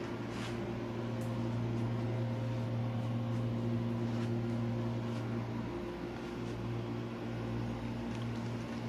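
Steady low hum of a running machine, such as a room air conditioner or fan, with a few faint clicks over it.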